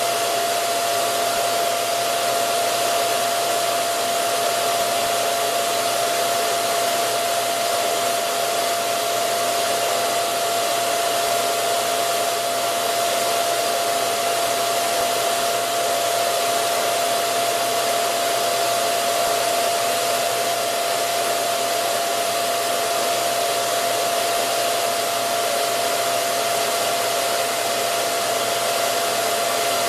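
Steady, unchanging motor whir with a constant whining tone through it, from powered workshop machinery running continuously.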